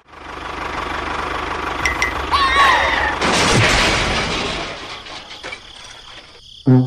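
A small engine running with a steady low throb, with a short loud burst of hissing noise in the middle that then fades away. Brass music starts near the end.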